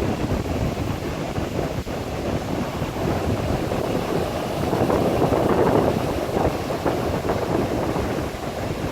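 Wind buffeting the microphone over the wash of waves breaking on a beach, swelling louder for a moment about five seconds in.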